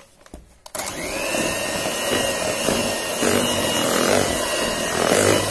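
An electric hand mixer is switched on a little under a second in. Its motor whine rises briefly, then runs steadily as the beaters whip vanilla extract into buttercream.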